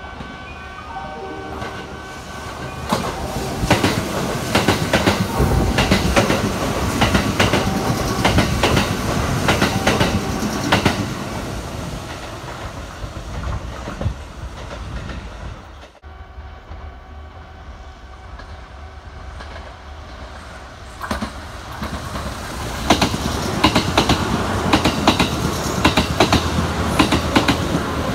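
Kintetsu limited express electric trains running through a station, the wheels giving a rapid clickety-clack over the rail joints. The clatter builds, fades through a quieter middle stretch, then returns loud as the 22000 series ACE passes close near the end. A short repeating pitched tone pattern opens the sound.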